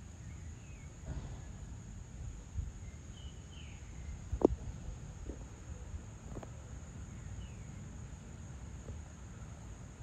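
Dusk ambience: a steady high insect drone over a low rumble, with a few short bird chirps. A single sharp knock about four and a half seconds in is the loudest sound.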